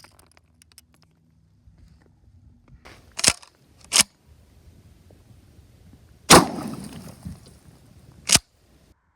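Four sharp bangs: a pair about three seconds in, then two more about two seconds apart. The third is the loudest and trails off over about a second and a half.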